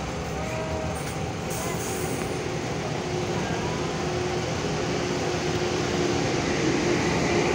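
Heavy diesel truck engines running with a steady low rumble that grows gradually louder toward the end as a truck draws closer.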